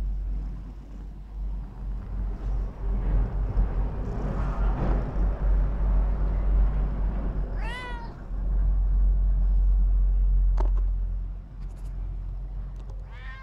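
Domestic cat meowing twice: one short meow about eight seconds in and another near the end. Under it runs a continuous low rumble close to the microphone, with a few light clicks.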